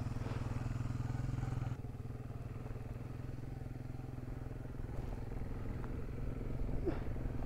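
Motorcycle engine idling steadily. The sound drops a little quieter about two seconds in.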